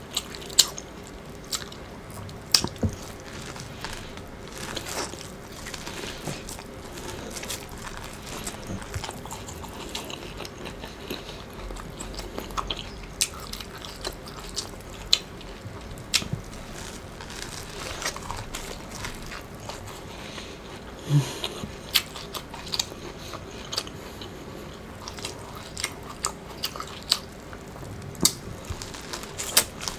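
Close-up eating sounds of a person biting kernels off an ear of Mexican street corn (elote) on the cob and chewing, with frequent irregular sharp crunching clicks and wet smacking.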